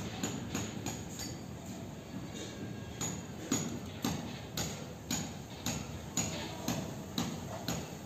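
Sharp tapping clicks that fall into an even beat of about two a second from about three seconds in, over a low rumble.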